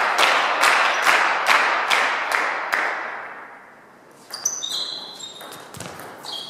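Spectators clapping in a steady rhythm, fading out over the first three seconds. Then a table tennis rally: the ball clicks sharply off bats and table with short high pings, about two hits a second.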